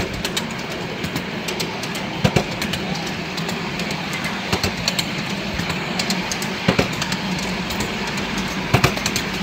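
Miniature ride-on railway train running along the track: a steady rolling rumble of wheels on rail, with sharp clicks in close pairs about every two seconds as the wheels cross rail joints.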